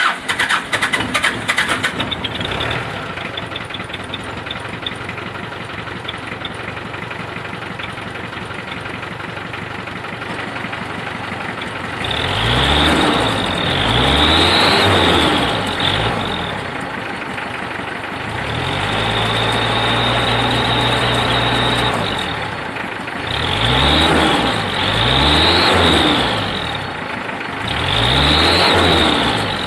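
Mitsubishi L300 pickup's diesel engine, just started, idling through a tailpipe fitted with a homemade fake turbo whistle, a small bicycle hub cup welded onto the exhaust tip. From about twelve seconds in it is revved repeatedly, in quick rises and falls and one held rev, and each rev brings a high 'ngiir' whistle meant to mimic a Canter truck's turbo.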